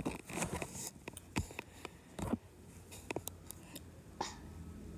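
Handling noise: scattered clicks, scrapes and rustles as a hand works a plastic flashlight close to the phone, busiest in the first second, then single knocks every second or so.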